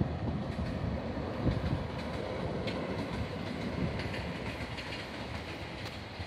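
Train passing on the rails: a steady rumble of wheels on track with scattered light clicks.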